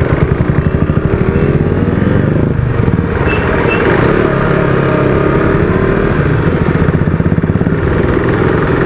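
Motorcycle engine running with a steady, even beat, its pitch rising and falling a little.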